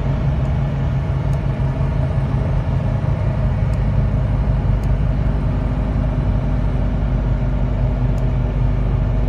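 Dodge Ram's 8.0-litre Magnum V10 engine running at wide-open throttle in second gear, pulling a heavy trailer load of about 11,000 pounds up a long grade. It is heard from inside the cab as a steady low drone at an even pitch.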